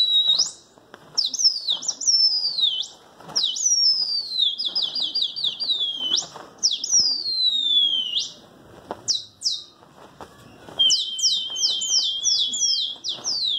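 Loud, high whistles in quick runs, each shooting up and then sliding down in pitch. Near the end a trilling whistle holds one pitch with quick upward flicks over it.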